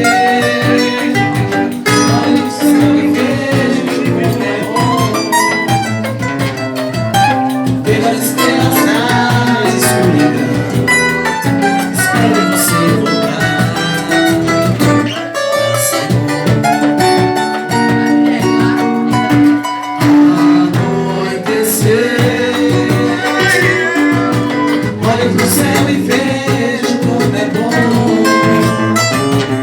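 Live band music with guitar and drums playing a Brazilian pop ballad, with some singing over it.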